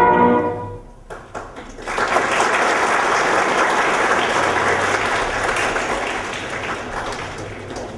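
A crowd of people applauding: a few scattered claps, then steady applause from about two seconds in that slowly dies down. Sustained music fades out in the first second.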